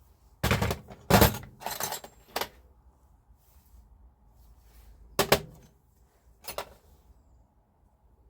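Metal parts and tools being handled, giving a run of clattering knocks and clinks, then two more single knocks later on.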